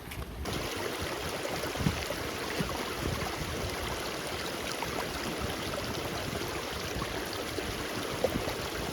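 Steady rushing of a fast-flowing mountain stream, cutting in abruptly about half a second in.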